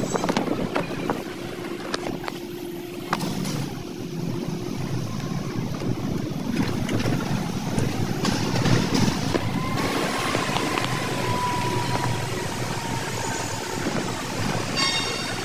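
Car driving slowly, heard from inside the cabin: a steady engine and road rumble with occasional knocks. A thin drawn-out squeal runs for a few seconds past the middle.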